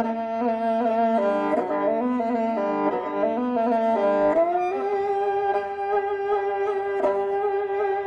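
Kobyz, the Kazakh two-string bowed fiddle with horsehair strings, playing solo: a quick-moving melody over a low drone, then about four seconds in a slide up to a long held note.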